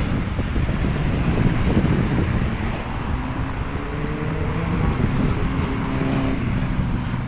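Road traffic: a steady low rumble of cars, with one vehicle's engine note passing and sliding in pitch in the second half.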